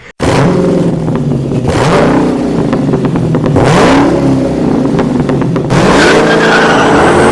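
Car engine revving, its pitch rising and falling several times. The sound cuts in abruptly just after the start.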